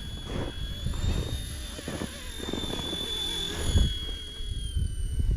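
Small battery-powered RC helicopter in flight: its electric motor and rotor make a steady high whine that wavers slightly in pitch. Wind buffets the microphone with a low rumble.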